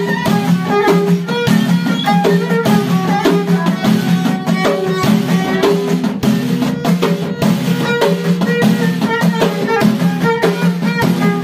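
Amazigh folk music: a violin held upright on the knee and bowed, with two hand frame drums beating a steady, quick rhythm.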